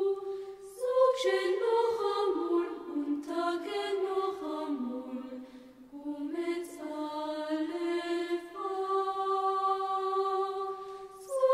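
Background music: a single voice chanting a slow melody. It holds a long note, steps down lower through the middle, and settles on another long held note near the end.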